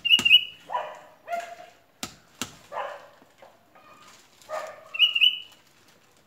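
Hammer knocking on a mango tree trunk while fastening an orchid to it: a few sharp knocks spaced a second or two apart. Mixed in are short high-pitched yelps from an animal, loudest just after the start and again about five seconds in.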